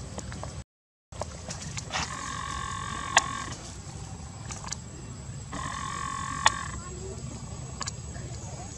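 Baby macaque crying: two drawn-out, wavering high squeals of about a second and a half each, the first about two seconds in and the second past the middle, each with a sharp click inside it. The sound cuts out for a moment near the start.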